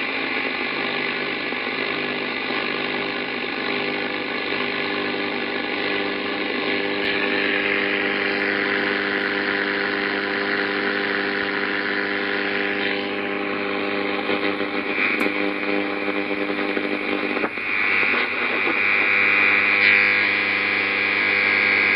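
Icom IC-756PRO III ham radio transceiver's receiver audio: a steady hiss of interference noise with a cluster of constant humming tones, the mix changing abruptly three times. It is radio-frequency interference picked up on the amateur bands.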